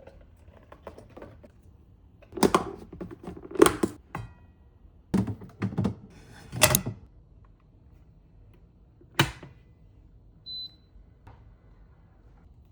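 Household items being handled and set down in a small room: a series of sharp knocks and clunks in two clusters and a single one later, then a short high beep.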